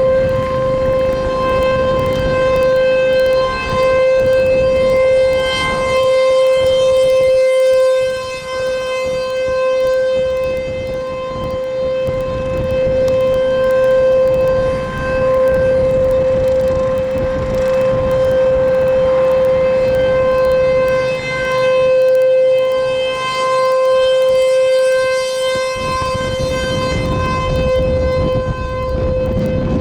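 ASC T-128 rotating outdoor warning siren sounding a steady Alert tone at close range, very loud. Its level swells and fades every few seconds as the rotating head sweeps past.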